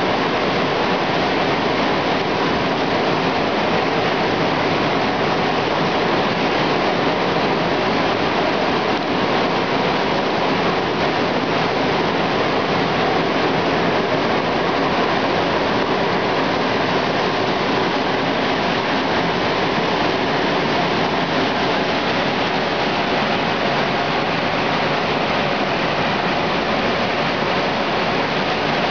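Volcanic steam vent (fumarole) hissing steadily and loudly with escaping steam.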